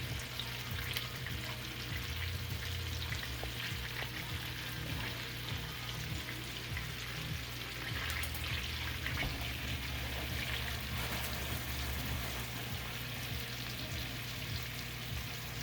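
Monkfish pieces frying in salted butter in a pan: a steady sizzle with small crackling pops from the spitting butter.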